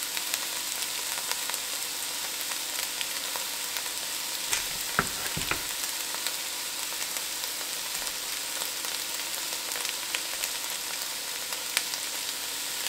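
Diced onion, celery and carrot sizzling steadily in hot oil in a Dutch oven, sweating until translucent. A few light knocks come about five seconds in.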